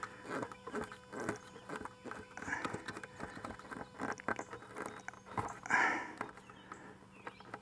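Plastic bulkhead fitting's nut being hand-tightened against a plastic bucket wall: a string of irregular clicks and creaks from the threads and the flexing bucket, with a short strained breath about six seconds in.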